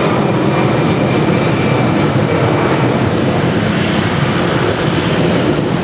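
Boeing 787 Dreamliner's twin turbofan engines at climb power just after takeoff: a steady jet noise that holds at an even level.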